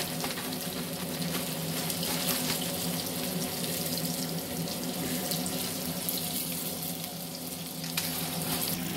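Trout pieces deep-frying in hot grease: a steady sizzling hiss, over the low, even hum of a kitchen exhaust fan.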